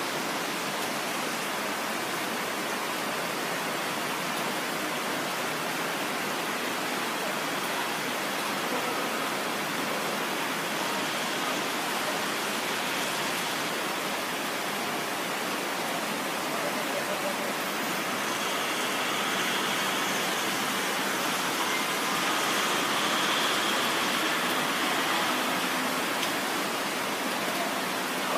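Rain falling steadily, an even hiss that swells a little louder about twenty seconds in.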